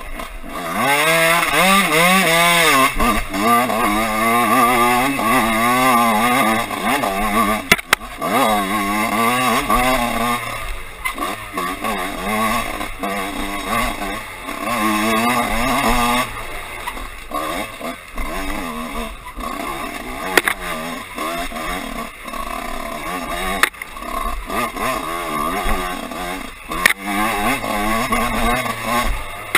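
Dirt bike engine revving up and down over and over as the rider throttles on and off, its pitch rising and falling, loudest in the first few seconds. A few sharp knocks cut through it.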